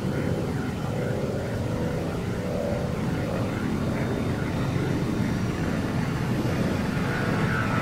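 A steady, low droning rumble, engine-like, without a break or change.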